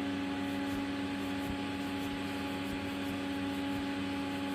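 Steady mechanical hum: a constant pitched drone with overtones over an even hiss, unchanging throughout.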